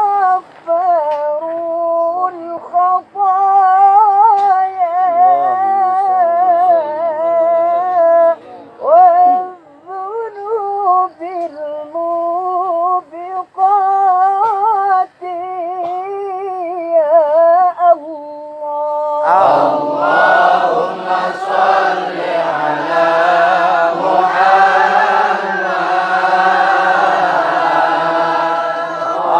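A high solo voice chanting Arabic sholawat in a wavering, heavily ornamented melodic line, ending on a long held note. About two-thirds of the way in, a group of voices comes in together, fuller and louder.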